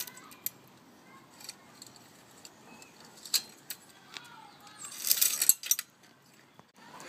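Bicycle chain clinking and rattling as it is taken off and handled, in scattered small clicks, with a louder jingling rattle about five seconds in.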